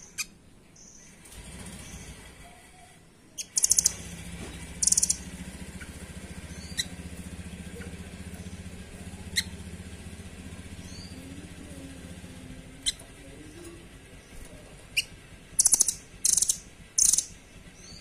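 Small caged rambatan songbird calling: sharp single high chirps and short rapid trilling bursts, the loudest being one early on and three in quick succession near the end. A low steady hum runs underneath through the middle.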